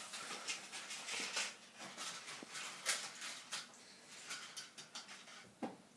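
Faint, scattered clicks and clatter of toy trains and wooden railway track pieces being handled, with a slightly louder knock near the end.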